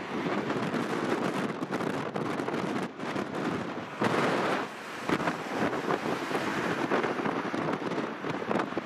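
Strong gusty wind buffeting the microphone, mixed with the rumbling jet engines of a Boeing 777 on final approach. A sharp gust comes about four seconds in.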